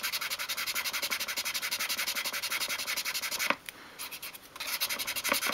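Fine 500-grit sandpaper rubbed back and forth by hand in rapid, even strokes on a small wooden drawer, sanding away glue residue. The strokes pause for about a second, roughly three and a half seconds in, then resume.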